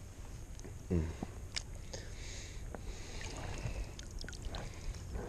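Lake water sloshing and splashing softly as a carp is handled in the shallows for release, with scattered small drips and clicks and a brief louder splash or knock about a second in.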